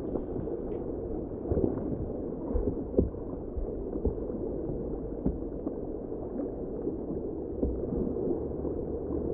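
Muffled water noise from a kayak being paddled on a river: a steady dull rushing with a few soft knocks of the paddle strokes.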